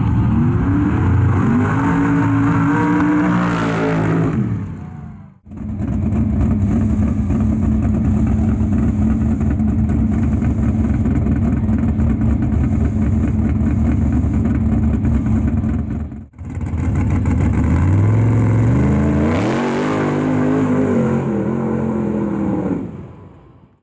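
Mud race truck's engine in three clips: it revs up in a rising pitch and falls away, then runs steadily at a lumpy idle for about ten seconds, then revs up again through the mud pit and fades out.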